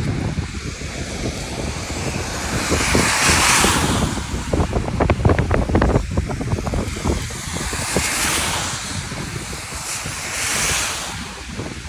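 Rainy outdoor ambience: vehicles swish past on a wet road several times, over a steady wash of noise, with a quick run of clicks and taps about halfway through.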